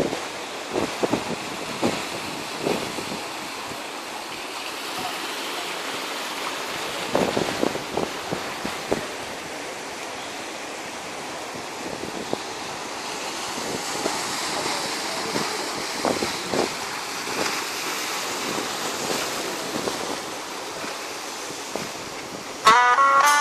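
Sea surf washing and foaming over shoreline rocks, with wind on the microphone and a few short sharp sounds scattered through it. Music with plucked guitar notes cuts in suddenly near the end and is louder.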